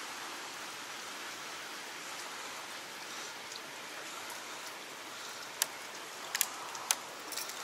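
Steady hiss of a small stream running over rocks, with a few sharp clicks near the end.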